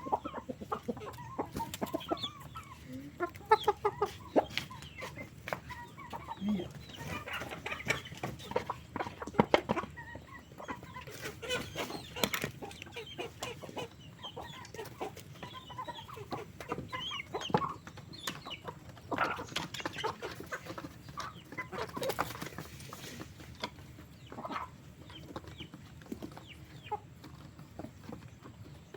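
A flock of chickens clucking and calling in short, scattered bursts, mixed with many sharp clicks and taps.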